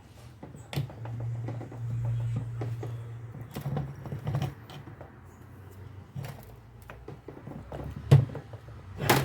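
Scattered clicks and knocks of metal starter-motor parts being handled during reassembly, with the loudest knock near the end. A low steady hum starts about a second in and lasts a couple of seconds.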